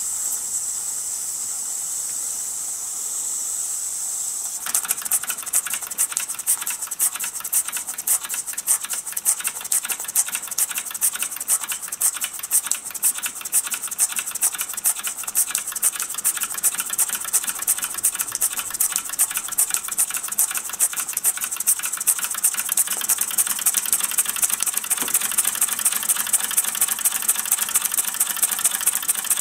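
Mamod SP7 twin sleeve-valve model steam engine. A steady hiss for a few seconds, then about four and a half seconds in the engine starts turning over, with a rapid clicking exhaust chuff and mechanical clatter marked by a regular louder beat.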